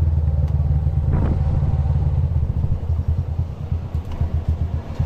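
Motorcycle tricycle's engine running on the move. About halfway through, the throttle eases off and the exhaust breaks into separate, uneven putts as the machine slows down.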